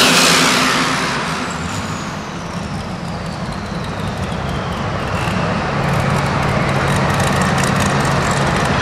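Turbocharged super stock pulling tractor engine coming off full power at the end of a pull: the engine drops back over the first two seconds while a high turbocharger whine winds down, falling steadily in pitch for several seconds, then the engine settles to a steady idle.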